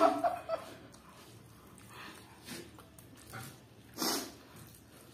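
Faint slurping and breathing as instant noodles are sucked up straight off the plate without hands, with a louder slurp about four seconds in; a voice trails off at the very start.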